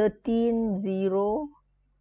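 A woman's voice holding one drawn-out, even-pitched sound for about a second, a hesitation sound mid-sentence, then quiet.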